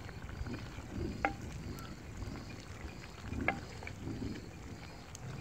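Ladle stirring and scraping minced meat and potatoes in a clay pot, with two sharper knocks of the ladle on the pot, about a second in and again about three and a half seconds in. A faint high chirp repeats about twice a second behind it.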